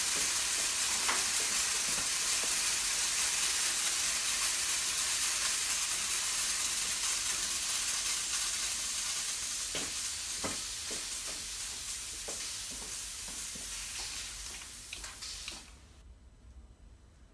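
Compressed air hissing steadily through the robot's paint spray guns, slowly weakening in the second half and dying away about fifteen seconds in as the air is shut off. Scattered light clicks and knocks are heard as the hiss fades.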